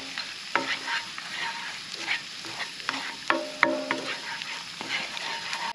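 Garlic and onion sizzling in a non-stick frying pan on a camp gas stove, with a spatula stirring and scraping against the pan in irregular clicks.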